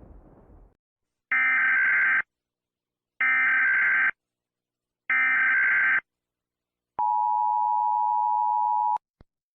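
Emergency Alert System tones: three one-second bursts of SAME header data, about a second apart, then the two-tone EAS attention signal held for about two seconds. In the first second, the low rumble of an explosion dies away before the tones begin.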